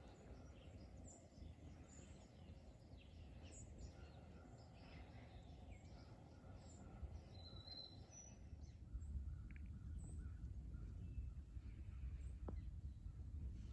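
Faint rural outdoor ambience: scattered small bird chirps and calls over a low, steady rumble that grows a little louder in the second half.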